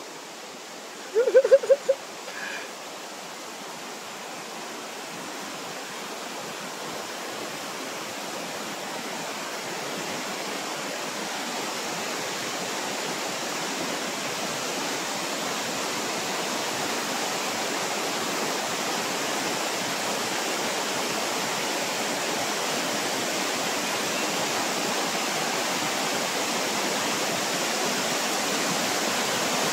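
Steady rushing water noise, even and without rhythm, growing slowly louder. A brief pitched sound comes about a second in.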